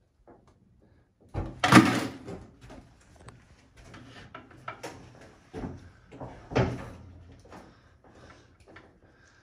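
Knocks, clicks and scrapes of hands-on work on a scaffold while a wallpaper mural is smoothed into the ceiling edge. The loudest is a rough scrape or rustle about two seconds in, with two shorter ones past the middle.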